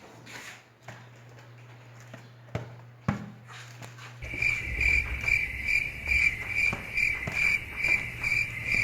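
Insect chirping in a regular pulsing trill, about three chirps a second, starting about four seconds in. A faint low hum runs underneath.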